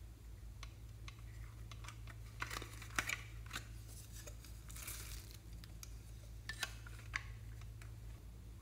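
Scattered plastic clicks and short crackles as a flower-shaped plastic case is handled and opened, with the sharpest click about three seconds in, then small glitter squares tipped out and dropping onto foam beads.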